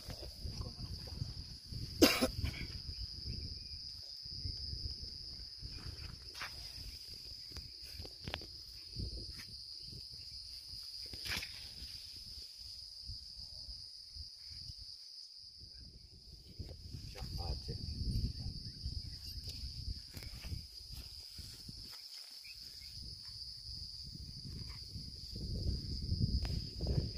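Insects droning steadily at one high pitch, over a low uneven rumble. A sharp knock about two seconds in is the loudest sound, with a few fainter knocks and handling noises later.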